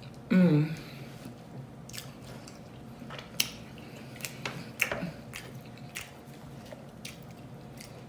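Close-up chewing with wet mouth smacks and clicks scattered through. Just after the start comes one short voiced sound that falls in pitch.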